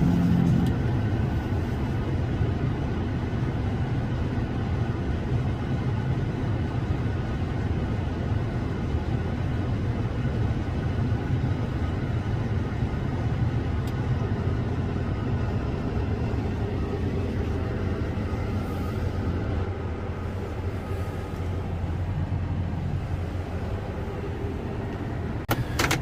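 Farm tractor's diesel engine running steadily, a continuous low rumble.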